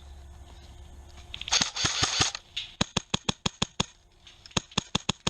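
Airsoft electric rifle firing a string of rapid single shots, about six a second, with a short pause partway through, after a brief rustle of handling or reloading.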